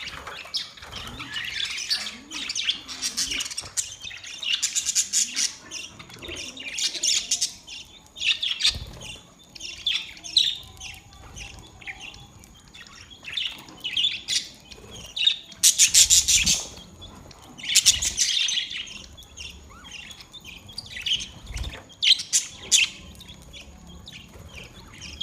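Budgerigars chattering in bouts of rapid high chirps with short pauses between them, the loudest bursts about two-thirds of the way through.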